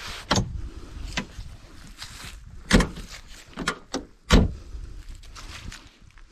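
About five sharp clunks and knocks from a 1988 VW Golf Cabriolet's soft top and body as the top is pulled down and latched onto the windshield frame. The loudest two come about a second and a half apart in the middle.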